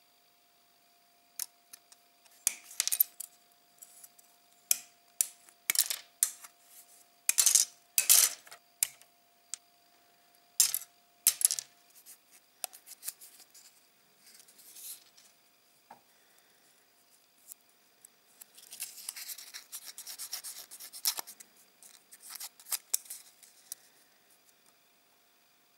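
Small styrene model-kit parts being trimmed by hand with a metal hobby cutting tool: a run of sharp snips and clicks through the first half, then a scratchy stretch of the blade scraping a part, and a few more clicks near the end.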